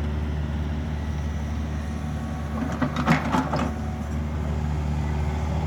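An engine idling steadily with a low hum, with a few short clicks and knocks about three seconds in.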